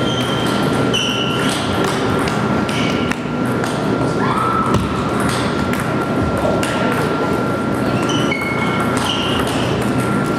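Table tennis balls clicking off bats and tables, many sharp hits at an irregular pace with play going on at several tables at once, in a reverberant sports hall. A faint steady high tone runs underneath.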